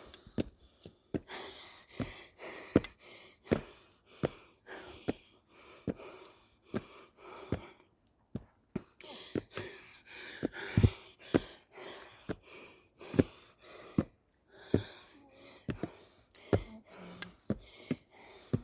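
Footsteps climbing stairs at a steady pace, about one step every three-quarters of a second, with a short pause about eight seconds in, and the climber's breathing between steps.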